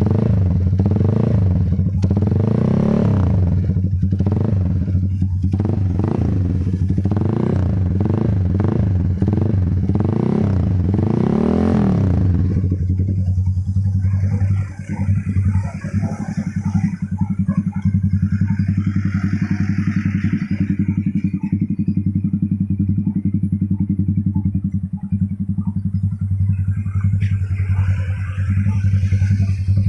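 Z200S motorcycle engine running through an aftermarket SC pipe with a big elbow header, blipped up and down repeatedly, then dropping back to a steady idle about twelve seconds in.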